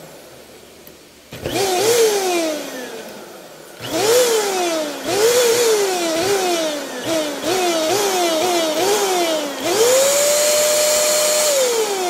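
Perysmith handheld vacuum cleaner's motor stuttering on and off as its broken on/off push button is pressed. It whirs up and winds down again and again in short bursts, then runs steadily for about two seconds near the end before winding down.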